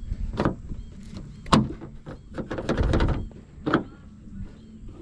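Sharp plastic and metal clicks and knocks from a car door handle and its parts being handled and fitted into the door, three clear clicks with a rustling scrape between the second and third.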